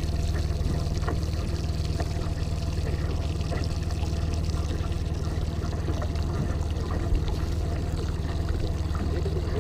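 Steady low hum of the boat's motor, with water washing and splashing against the hull.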